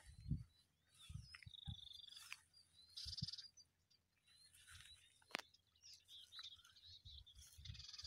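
Several small birds chirping and trilling faintly, with a harsh chatter about three seconds in. A few low thumps and a sharp click are mixed in.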